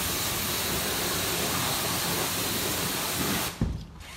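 High-pressure washer jet hissing steadily as it blasts water onto an upturned RC truck's chassis, stopping abruptly about three and a half seconds in, followed by a brief thump.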